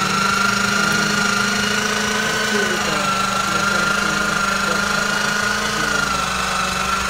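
Electric meat grinder running steadily as pork is pushed through it: a constant motor hum with a high whine over it.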